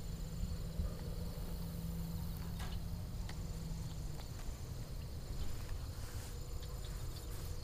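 Crickets trilling steadily in the background, with a low steady hum that stops about four seconds in and a few faint clicks.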